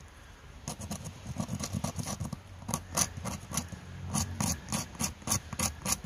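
Serrated blade of a Gerber Suspension multitool scraping a fatwood stick to raise tinder fluff, in quick short strokes, several a second, starting about half a second in.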